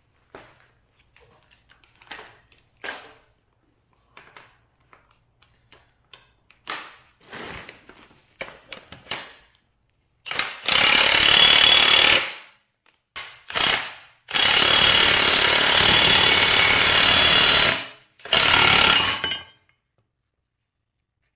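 Scattered clicks and knocks of metal parts being handled, then from about halfway a cordless impact wrench hammering in several bursts, the longest about three and a half seconds. It is driving the screw of a C-frame ball joint press, pressing an upper ball joint into a steering knuckle.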